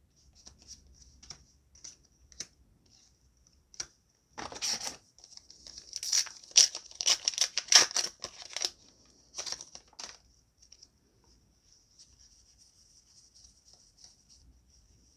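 Foil trading-card booster pack wrapper being torn open and crinkled: a burst of ripping about four and a half seconds in, then a run of sharp crackles and rips, then quieter rustling.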